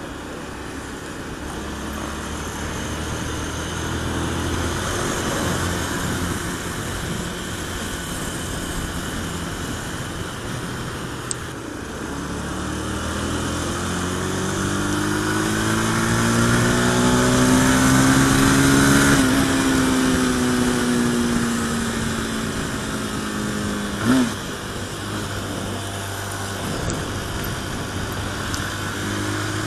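Honda motorcycle engine running while riding at speed, with wind noise. The engine note climbs steadily and is loudest about two-thirds of the way in, then falls away again.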